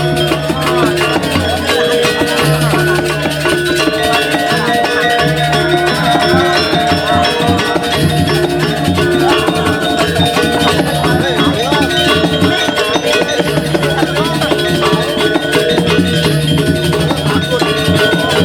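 Balinese gamelan music: metallophones and drums playing a dense, steady texture.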